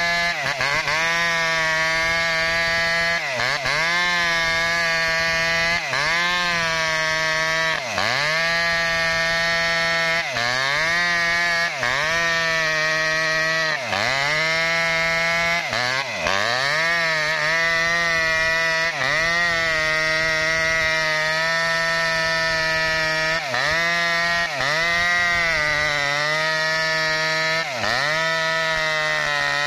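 Maestro mini chainsaw running at high revs while cutting through a tree trunk, its pitch dipping and recovering every couple of seconds as the chain loads up in the wood.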